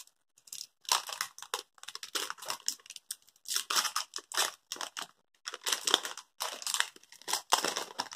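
Paper wrapper of a Fritt chewy candy strip being peeled open by hand, rustling, crinkling and tearing in quick irregular bursts.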